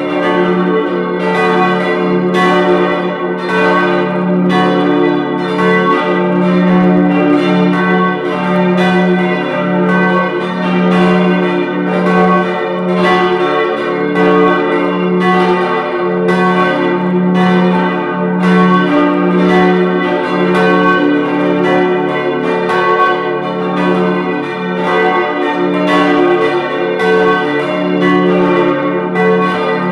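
Full peal of the Reformed church's four bells, tuned D, F-sharp, A and B, ringing together. Strokes overlap in a continuous, uneven sequence over a steady low humming ring.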